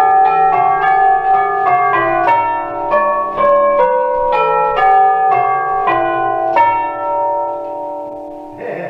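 A set of eight brass tubular bells cast by the Danks Foundry, struck one after another in changes at about three strokes a second. The strokes stop about six and a half seconds in and the bells ring on and fade, with a short knock just before the end.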